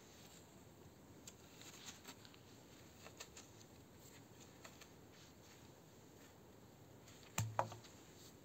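Faint scraping and crunching of a small spade shovelling loose soil back into a planting hole, with a few light ticks. About seven and a half seconds in, a short thud with a brief clink as the spade is dropped on the ground.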